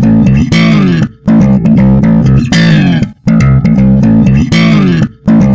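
Loud rock music: a bass and guitar riff that breaks off briefly three times, about every two seconds.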